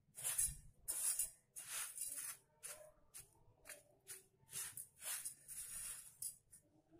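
Fingers stirring and rubbing through dry raw rice grains in a steel pot: about a dozen irregular rustling swishes of grains sliding against each other and the metal.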